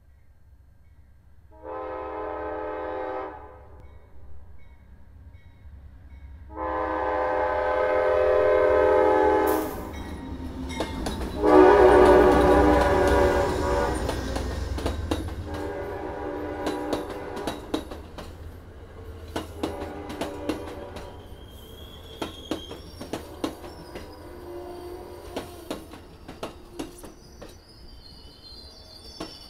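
Amtrak passenger train passing a grade crossing. The locomotive's horn sounds a short blast, then two long ones; the third is the loudest, with a low engine rumble under it as the locomotive goes by. The cars then roll past with a steady clicking of wheels over the rail joints.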